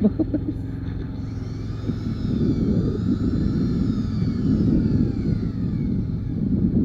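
Case backhoe loader's diesel engine running, getting louder about two seconds in, with a whine above it that rises and then falls.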